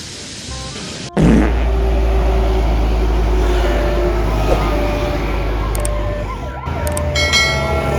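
Heavy road vehicle's engine rumbling low and steady, with a siren-like tone slowly falling in pitch above it. Near the end a loud horn blares with several steady tones.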